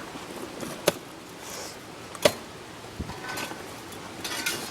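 Sledgehammer blows: two sharp strikes about a second and a half apart, with fainter clatter near the end.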